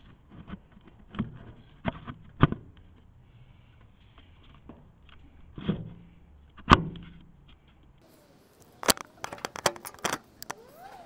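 Knocks, clicks and rattles of a trail camera being handled and re-aimed at close range: single sharp knocks every second or so, then a quicker run of clicks near the end.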